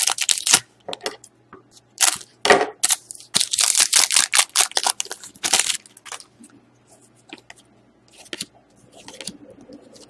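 Crinkling and rustling of trading-card packs and cards being handled as a pack is opened. It comes in busy clusters during the first half and thins to scattered light ticks later.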